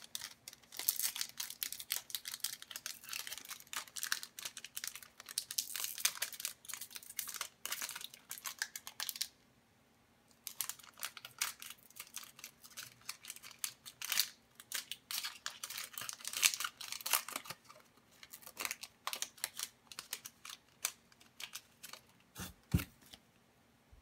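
Foil wrapper of a hockey card pack crinkling and tearing as it is opened by hand, in dense quick crackles. The crackling stops for about a second some nine seconds in, then carries on more sparsely as the wrapper and cards are handled.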